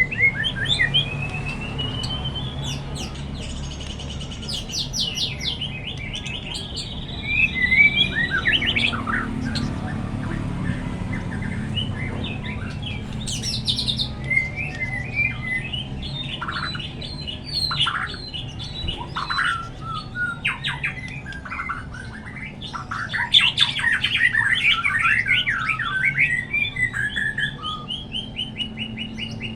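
White-rumped shama (murai batu) singing a long, varied song: clear whistles and rising glides mixed with fast rattling trills, packed densest in the second half.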